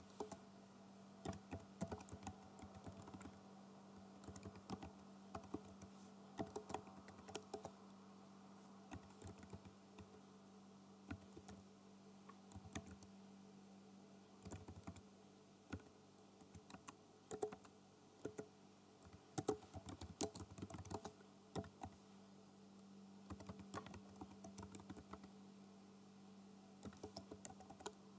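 Computer keyboard typing: quick keystroke clicks in irregular bursts with short pauses between them, over a faint steady hum.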